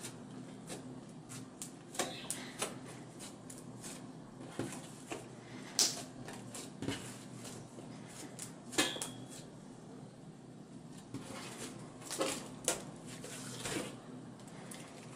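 Slime being pressed and kneaded by hand on a wooden tabletop: irregular sticky squelches with sharp little pops and clicks, a handful of louder ones spread unevenly through.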